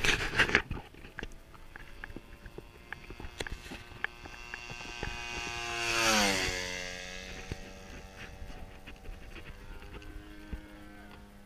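Radio-controlled Aeroworks Checkmate biplane making a low flyby. The engine and propeller drone grows louder, peaks about six seconds in, drops sharply in pitch as the plane passes, then fades as it flies away. A few knocks in the first second.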